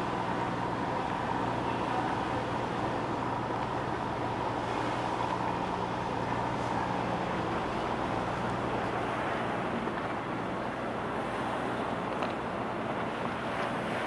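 Ferry's engines humming steadily, a constant low drone under an even rushing noise.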